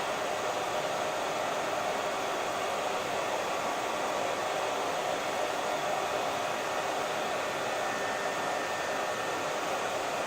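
Hair dryer running steadily: an even airy rush with no change in speed.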